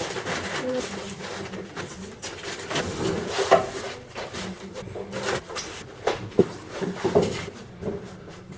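Irregular knocks, scrapes and rubbing as packaging is handled and pulled off a new washing machine.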